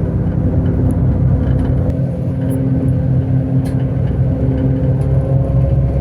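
Bus engine running steadily with road noise, heard from inside the moving bus, with a few faint rattles.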